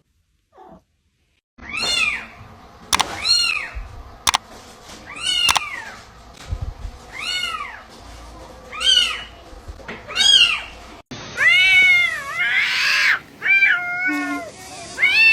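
A cat meowing over and over, high-pitched calls that rise and fall in pitch, about one every second or so, with a few sharp clicks between them. About eleven seconds in the sound cuts to louder, closer meows that come quicker and overlap, over a background hiss.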